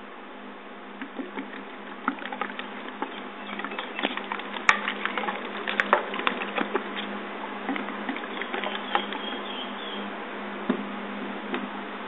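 Plastic drink bottle and its clip-on holder being handled: irregular clicks, taps and crackles, busiest a few seconds in, over a steady low hum.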